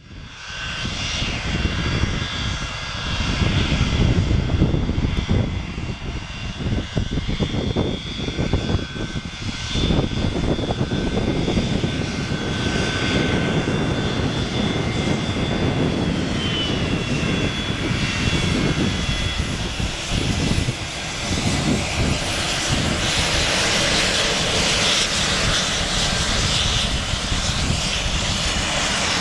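Boeing 737-200's Pratt & Whitney JT8D turbofan engines running at taxi power as the jet rolls by: a steady high whine over a low rumble. The hiss grows stronger over the last few seconds.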